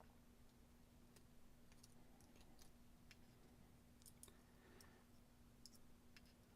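Faint, scattered small metallic clicks from a Yale mortise lock cylinder and its pins being handled while it is reloaded, a few isolated clicks a second or more apart, over a steady low hum.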